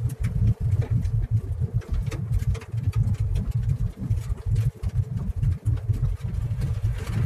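Car cabin noise while driving: a low, unsteady rumble of road and engine, broken by frequent faint clicks and ticks.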